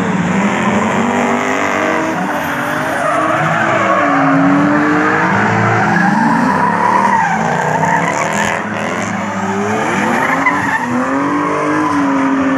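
Drift cars sliding in tandem: their engines rev up and down over and over while the tyres screech continuously through the slide.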